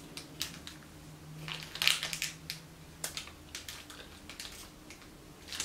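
Scattered crackles and crunches from a crunchy chocolate stick snack and its plastic wrapper being handled, with a denser cluster about two seconds in.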